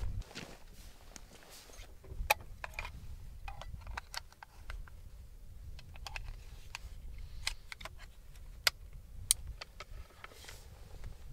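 Tikka T3x Lite rifle being handled and loaded: a scattered series of sharp metallic clicks and clacks from the magazine, cartridges and action, the loudest about two seconds in and twice near the end, over a low wind rumble.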